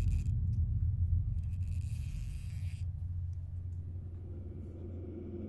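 Low rumbling drone of a suspense film score, slowly fading away, with a faint hiss about a second and a half in.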